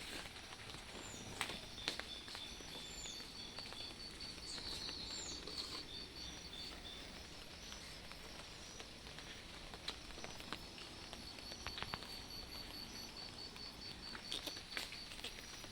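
Steady light rain with birds calling: a fast, evenly repeated high chirp goes on for several seconds, breaks off around the middle and resumes, with a few short sweeping calls and scattered sharp taps.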